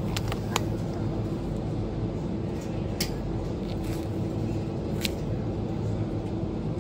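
Steady hum of a supermarket's refrigerated display cases, with a few light clicks as a plastic pack of sliced ham is handled and picked up from the shelf.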